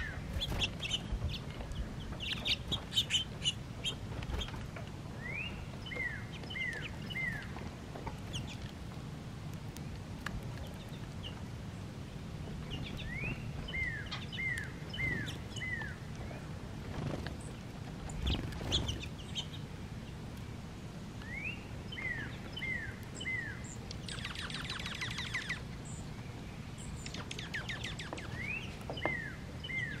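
Songbirds calling: a whistled phrase of one rising note followed by three or four clear falling notes repeats four times, with scattered chirps and a brief rapid buzzy trill late on.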